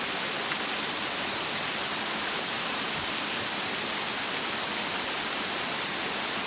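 Waterfall and river water rushing steadily, an even, unbroken wash of falling water.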